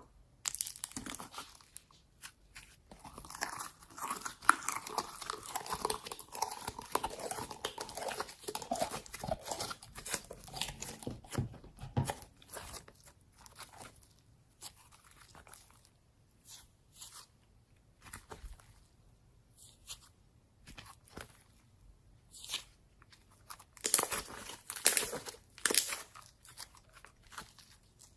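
Slime being squeezed and worked by hand, giving a dense run of small crackles and clicks for the first twelve seconds or so, then scattered pops, with another burst of crackles near the end.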